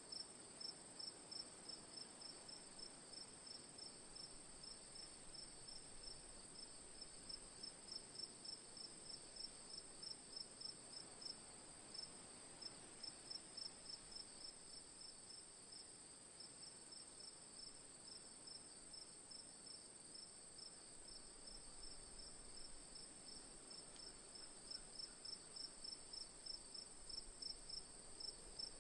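Crickets chirping faintly in an even, regular rhythm of about three chirps a second, over a continuous high-pitched insect trill. The chirping eases a little midway and grows stronger again near the end.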